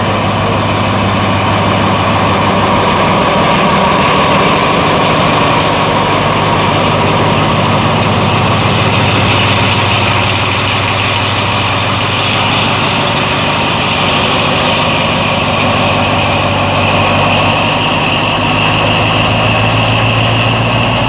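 Alsthom AHK diesel locomotive no. 4222 idling steadily, a loud even engine hum with a higher whine over it.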